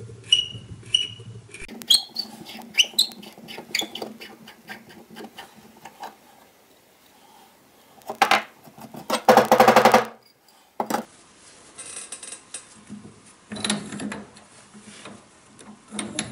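Small metal clicks, scrapes and rattles of an old No. 4 hand plane being taken apart by hand, with a rapid buzzing scrape about nine seconds in.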